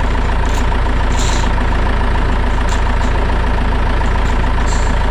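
A steady engine-like running drone with a heavy low rumble and a faint constant whine, unchanging throughout, with a few light ticks over it.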